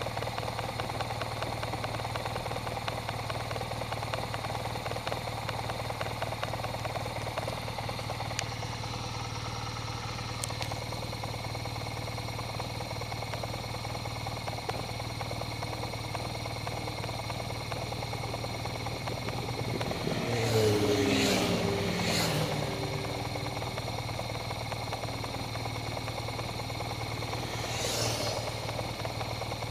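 Motorcycles riding past one after another: about two-thirds of the way in, a loud pass whose engine notes fall in pitch as the bikes go by, and another bike passes near the end. A steady low engine hum runs underneath.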